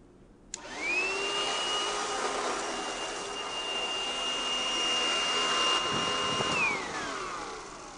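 Vacuum cleaner switched on with a click, its motor whine rising quickly to a steady pitch and running. Near the end it is switched off and the whine falls away as the motor winds down.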